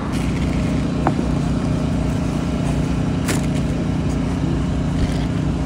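Steady low drone of a running engine, with a couple of light clicks about a second in and just past three seconds.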